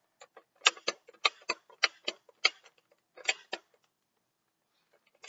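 Nerf Lawbringer blaster's plastic hammer-action mechanism clicking as the hammer is worked again and again: about nine sharp, uneven clicks over three seconds.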